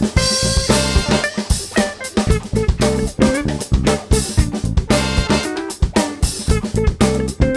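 Background music with a steady drum-kit beat under pitched instrument notes.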